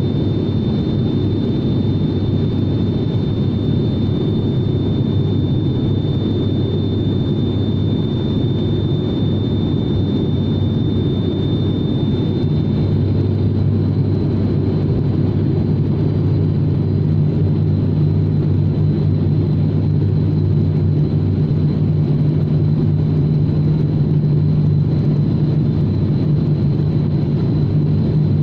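Turboprop airliner's engines and propellers droning steadily, heard inside the passenger cabin, with a deep hum and a thin high whine. About halfway through, the hum's pitch shifts slightly and the whine fades.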